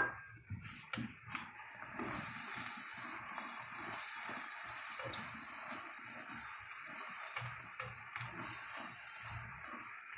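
Spinach, onions and crushed peanuts being stirred and turned with a spatula in a hot frying pan: a soft steady sizzle with irregular soft knocks and scrapes, and a few sharp clicks of the spatula on the pan, about a second in and near the end.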